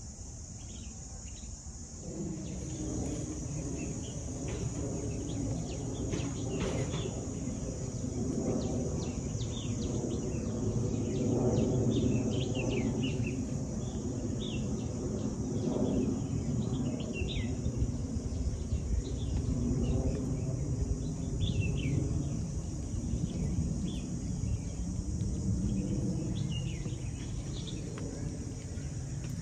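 Outdoor park ambience: many birds giving short chirps over a steady high insect drone, above a louder low background rumble.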